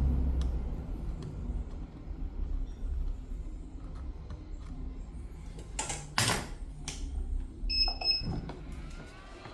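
Handling noise from repair work on a tablet at a workbench: scattered light clicks of tools and parts, a louder clatter about six seconds in, and a short high electronic beep near the end, over a low background hum.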